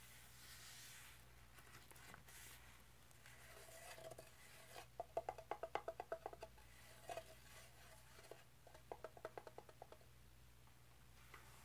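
Two quick runs of small, sharp clicks from a gloved hand handling a can of Comet cleanser, the first about four seconds in and the second near nine seconds, with faint room tone between.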